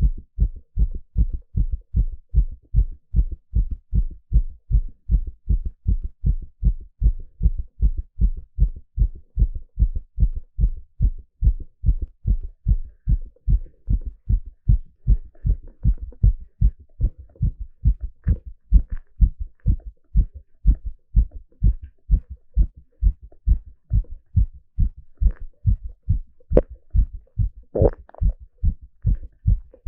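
A man's heartbeat picked up through a stethoscope on the chest: low lub-dub beats in a steady, even rhythm. A few faint higher clicks or rustles come in during the second half, with a louder one near the end.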